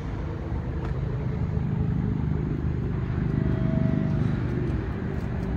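A vehicle engine running with a steady low rumble that swells a little in the middle.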